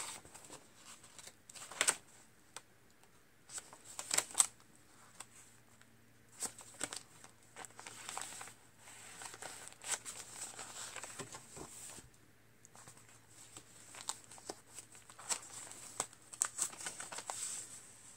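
Paper pages and card inserts of a coil-bound journal being turned and handled: irregular soft rustles and crinkles with a few sharper flaps, quiet in between.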